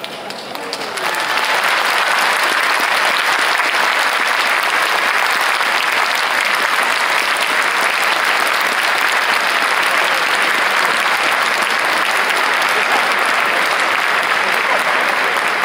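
Large stadium crowd applauding steadily. It is dense clapping without chanting, from supporters who were not allowed to use their voices. The applause swells in about a second in and holds at the same level.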